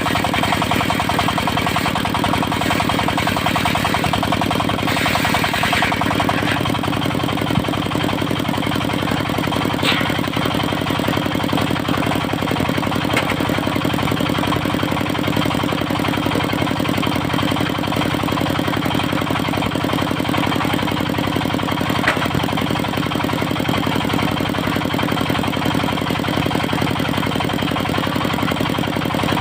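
Engine of a portable circular sawmill running steadily, with a slight change in its note about six seconds in and a few faint knocks later on.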